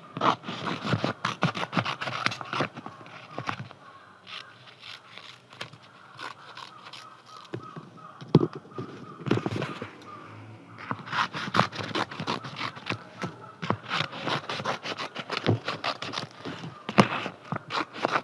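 Scissors cutting through a paper poster, with rapid snips and paper scraping and rustling. The snips come thick at first, thin out through the middle, then come thick again.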